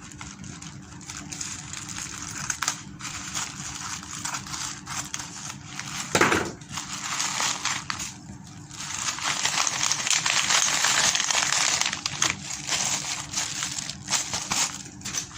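Plastic packaging crinkling and crackling as RC car parts are unwrapped by hand, in irregular rustling bursts that grow loudest and most continuous past the middle.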